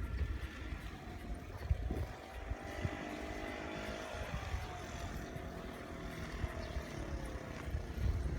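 Wind buffeting the microphone, with a passing engine's hum that slides slowly down in pitch through the second half.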